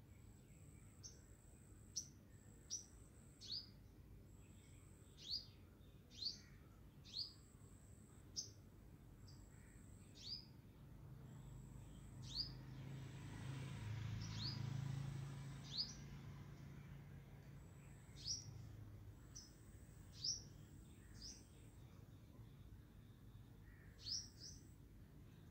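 A small bird chirping over and over: short, high, falling chirps about once a second, faint against a quiet background. A soft low rumble swells and fades in the middle.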